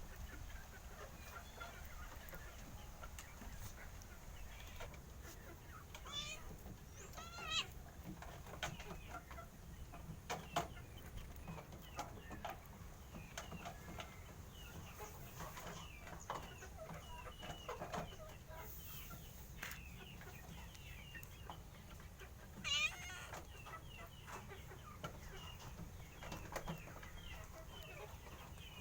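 Domestic chickens clucking on and off, with a few louder calls about six, seven and twenty-three seconds in.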